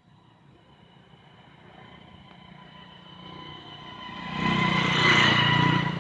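A motor vehicle approaching, growing steadily louder until it is loudest from about four and a half seconds in, with a steady high whine over a low engine sound.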